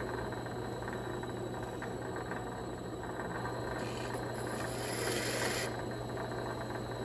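Vevor mini lathe running steadily with a constant motor hum, with a brighter, higher hiss added for a second or two from about four seconds in.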